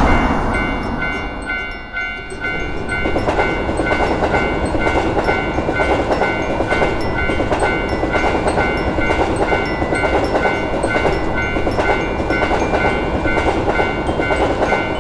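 Japanese level-crossing warning bell ringing about twice a second while a train runs past with clattering wheels.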